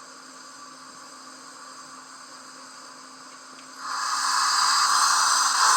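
Sound decoder of a Lenz O gauge DB class 86 model steam locomotive, heard through the model's speaker: a faint steady steam hiss, then about four seconds in a loud steam whistle starts suddenly and carries on.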